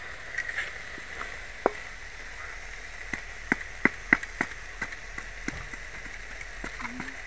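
Wooden spoon knocking and scraping against an aluminium cooking pot while stirring chopped pumpkin leaves: a string of sharp clicks, most of them between about three and five and a half seconds in.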